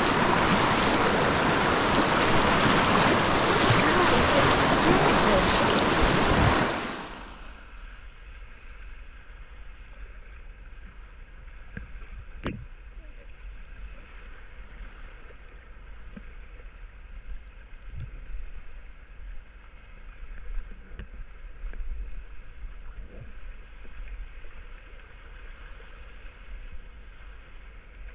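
Rushing whitewater of a river rapid, loud and steady for about the first seven seconds, then suddenly much quieter and muffled. In the quieter part there are a few faint knocks and splashes from the kayak paddle strokes.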